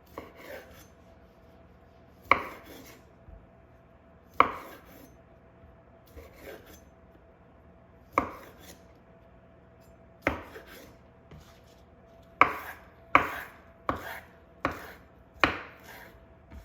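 A knife chopping on a cutting board: about ten sharp knocks at uneven intervals, coming faster toward the end.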